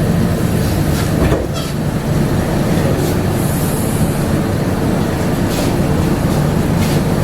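Rubber-tyred Bombardier APM100 people mover running along its guideway: a steady rumble with a low hum, broken by a few short knocks and a brief high hiss about halfway through.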